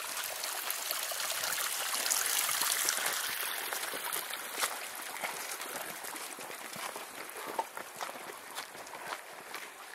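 Small mountain stream trickling over rocks, loudest a couple of seconds in and fading through the second half as it is left behind.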